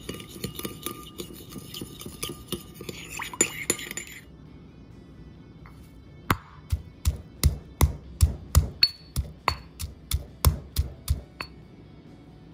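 A metal spoon stirring and clinking against a ceramic bowl of sauce. After a short pause, a stone pestle pounds garlic in a stone mortar: about fifteen heavy thuds at roughly three a second, louder than the stirring.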